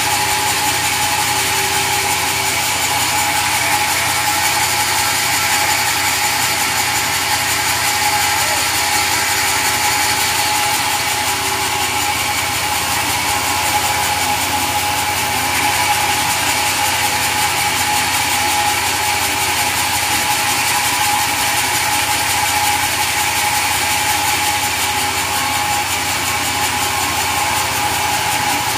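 Sawmill machinery running steadily, a continuous mechanical noise with a steady high whine and no breaks.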